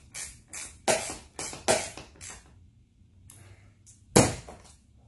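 Irregular sharp clicks and knocks of metal on metal from a roof rack crossbar clamp being tightened down with a hex key. There is one loudest knock about four seconds in.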